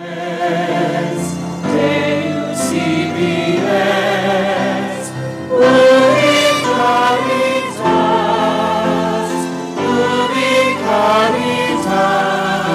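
Choir singing a slow sacred hymn in sustained, gently wavering chords that change every couple of seconds.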